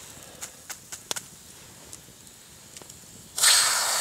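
A few faint crackles and clicks, then about three and a half seconds in a fire-heated rock goes into the water in a birch bark bowl and sets off a sudden loud steam hiss that keeps going.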